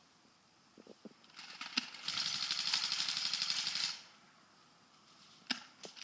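Airsoft gun firing a full-auto burst: a rapid, even string of shots lasting about two seconds. A few single sharp clicks follow near the end.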